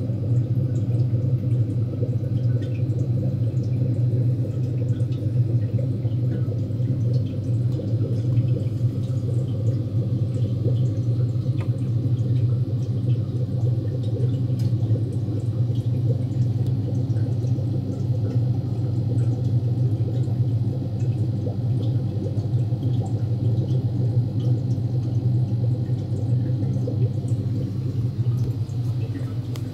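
Aquarium pump equipment running with a steady low hum, with faint trickling water and small drip-like ticks over it.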